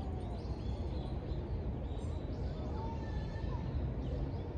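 City park ambience: a steady low hum of distant traffic, with faint far-off voices and a few bird chirps over it.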